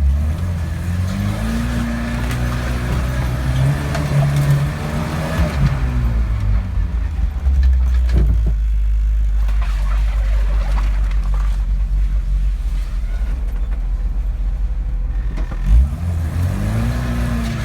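Volkswagen Iltis engine revving as it drives off-road. It climbs in pitch over the first few seconds and falls away by about six seconds in, gives one knock about eight seconds in, runs as a low rumble, and revs up again near the end.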